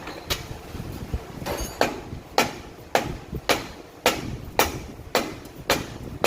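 Hammer blows on steel, struck at an even pace of about two a second, driving a part of the Ford F-250's front axle assembly into place.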